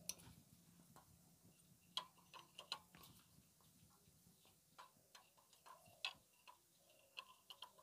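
Faint, irregular metallic clicks of a socket wrench turning out the 8 mm bolts on a Royal Enfield Classic 350's oil filter cover, about a dozen over several seconds.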